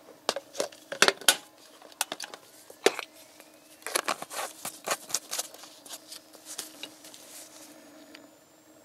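Clicks, taps and knocks of a plastic motor-oil bottle being handled, in a cluster about a second in and another around four to five seconds in, then thinning out, over a faint steady hum.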